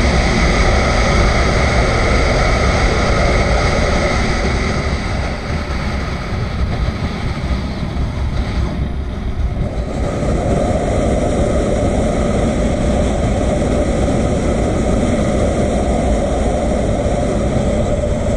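Motorcycle riding on the open road: the engine runs steadily under a heavy rush of wind on the bike-mounted camera's microphone. The sound eases a little for a few seconds near the middle as the bike slows, then holds steady again.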